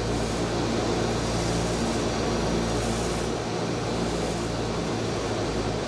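Four Pratt & Whitney R-2800 Double Wasp 18-cylinder radial engines of a Douglas DC-6A droning steadily at reduced climb power, heard from the flight deck. A low, even engine hum sits under a constant rushing hiss.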